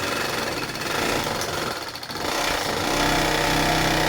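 Reliable DB-189 industrial sewing machine running fast with a rapid mechanical chatter while its bobbin winder fills a bobbin. It dips briefly about two seconds in, then runs on more steadily.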